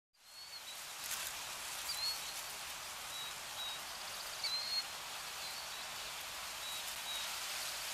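A steady hiss of outdoor ambience with several short, high bird chirps scattered through it. The sound fades in just after the start.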